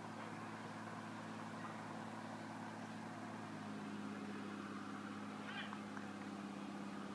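Steady low machine hum made of several held tones, the strongest growing a little louder about halfway through. A short high chirp comes near the end.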